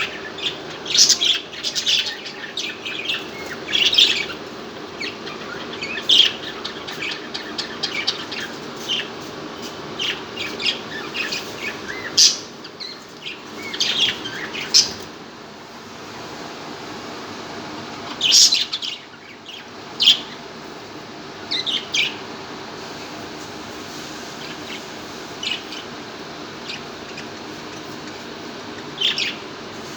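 Budgerigars chirping: clusters of short, high chirps, busiest in the first twenty seconds and sparser after that, over a steady low hum.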